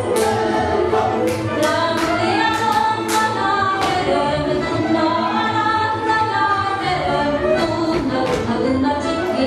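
A group of voices singing a Hungarian folk song for the Bodrogköz dances, with irregular sharp stamps and claps from the dancers through it.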